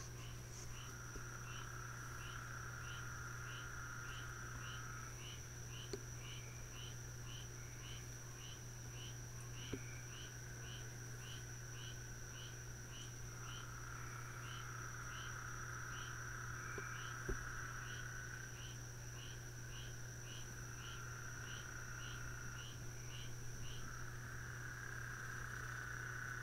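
Night chorus of insects and frogs: a steady high-pitched whine, a regular chirp repeating a little under twice a second that stops a few seconds before the end, and an on-off lower trill. A steady low hum sits underneath, and there are a few faint knocks.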